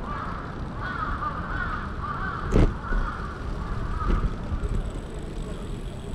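Crows cawing in a rapid run of harsh calls over steady street background noise. A sharp knock about two and a half seconds in, and a lighter one about four seconds in.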